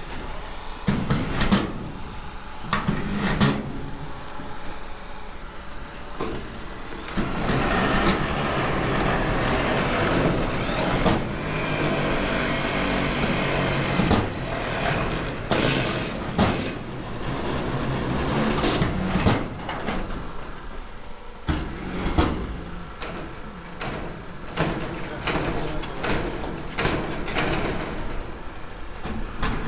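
Work on a steel awning: scattered sharp knocks and clanks of sheet-metal trim and panels being fitted, with a denser stretch of mechanical noise in the middle, over a constant low rumble.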